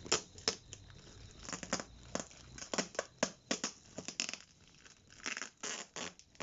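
Clear plastic shipping-label pouch being peeled off a cardboard box: irregular crinkling and crackling of plastic with short tearing sounds as the adhesive lets go.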